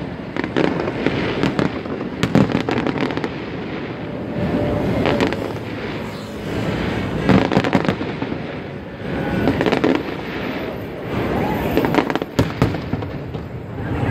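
Aerial fireworks shells bursting in a dense, continuous string of bangs, with a few louder reports standing out.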